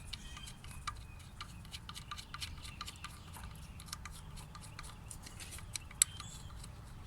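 Faint, irregular light clicks and ticks of small metal parts being handled as the ignition coil hold-down screws are hand-threaded in the engine bay, with one sharper click about six seconds in.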